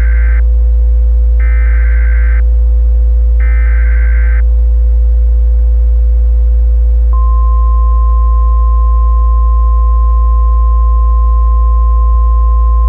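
Emergency Alert System header: three data bursts of warbling, two-pitched tone, each about a second long with a second's gap. About seven seconds in, a single steady high alert tone starts and holds. A loud constant low hum runs underneath.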